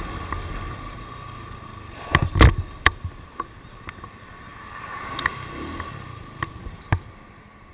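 Vehicle engine hum with a few steady tones, slowly fading, broken by scattered sharp clicks and knocks. The loudest cluster of knocks comes about two to three seconds in.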